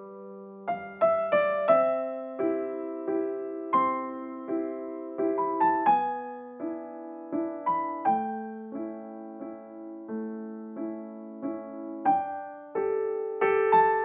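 Background music: a gentle piano melody of single struck notes, about two a second, over held lower notes.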